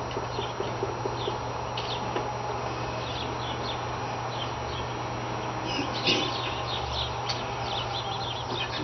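Small birds chirping, scattered calls that grow busier in the second half, over a steady low hum.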